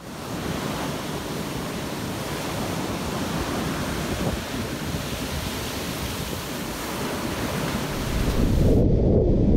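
Ocean surf breaking and washing up a beach, with wind buffeting the microphone. Near the end the high hiss cuts off and a louder low rumble takes over.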